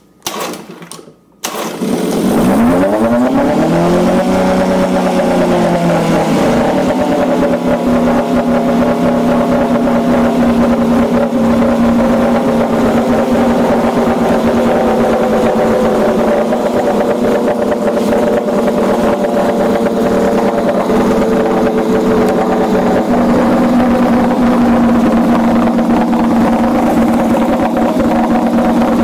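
1965 Evinrude Fisherman 6 hp two-stroke outboard pull-started on starting fluid with the choke closed. It catches about a second and a half in, revs up, drops back a few seconds later and then runs steadily, its exhaust bubbling out under the water of a test tub.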